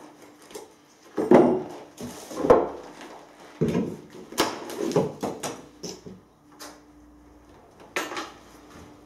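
Hand tools knocking and scraping on wooden floorboards and joists: about eight irregular knocks, the loudest between one and three seconds in, with scraping between them.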